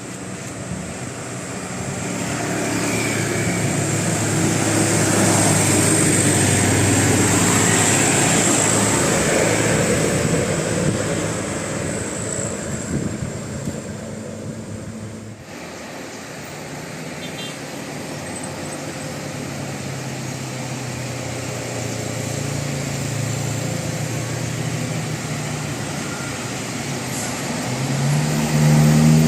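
A bus passing by, its engine and tyre noise swelling over several seconds and then fading. After an abrupt change about fifteen seconds in, a bus engine runs at a steady low hum that grows louder near the end.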